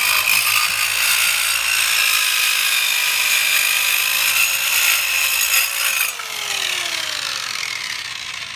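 A 4-amp mini circular saw with a 4-1/2 inch carbide-tipped blade runs under load, cutting across a wooden board with a steady high whine. About six seconds in, the motor is let off and the blade winds down, its pitch falling.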